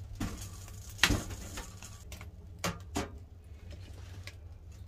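Firewood being loaded into a small stainless steel wood stove: a few sharp knocks and clunks of the log against the firebox and door, the loudest about a second in and two more near three seconds, over a steady low hum.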